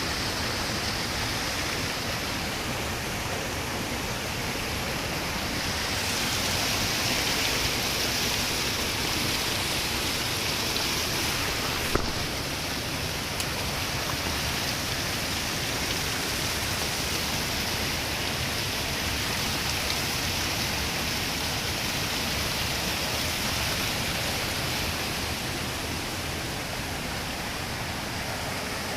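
Steady rushing of flowing stream water, with a single sharp click about twelve seconds in.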